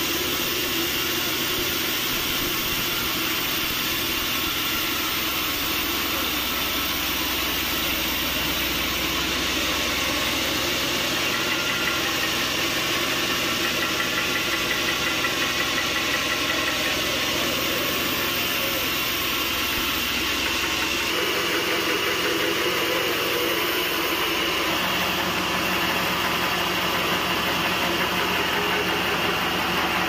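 Band sawmill running, its engine and saw head making a steady mechanical noise. About twenty seconds in, the deep rumble drops away and a steadier, higher hum takes over.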